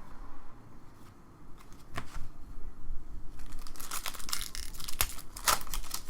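Trading-card pack wrapper being torn open and crinkled. A few sharp clicks come about two seconds in, then a dense crackling tear runs through the last couple of seconds.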